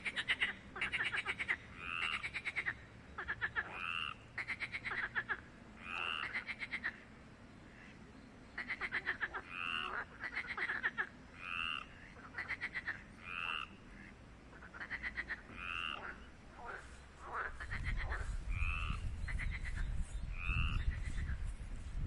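Frogs calling over and over: short, rapid pulsed trills alternate with brief two-toned croaking notes, about one call a second. A low rumble joins in during the last few seconds.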